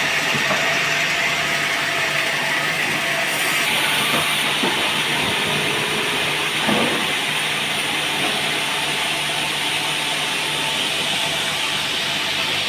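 Band sawmill running with a steady hissing noise.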